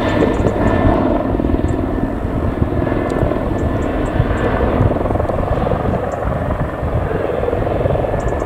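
Boeing 727's three Pratt & Whitney JT8D turbofan engines running steadily as the jet taxis and turns onto the runway: a loud, even rumble with a faint steady whine.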